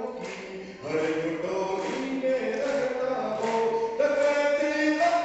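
A man singing a line of verse into a microphone, long held notes stepping between pitches and moving up to a higher held note about four seconds in.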